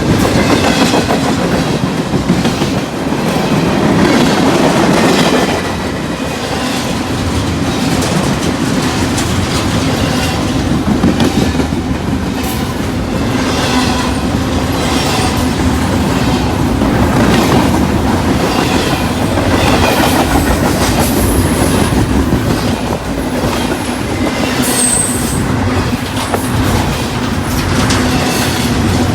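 Freight train cars rolling past at close range, wheels clicking over rail joints in a steady clickety-clack. A thin high wheel squeal comes in about two-thirds of the way through.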